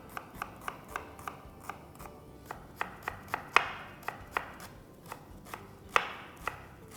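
Knife chopping onion on a chopping board: a run of sharp strikes, about three a second at first, then slower and uneven, with two louder strikes near the middle and near the end.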